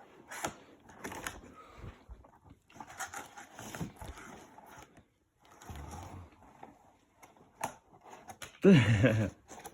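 Cardboard and plastic packaging rustling and crinkling with scattered clicks as a bat is unpacked from its boxes and bag. Near the end a dog whines loudly.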